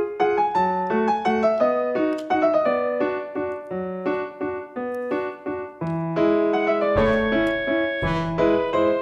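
Background music: a piano tune of evenly struck, fading notes, joined by a deeper, fuller accompaniment about seven seconds in.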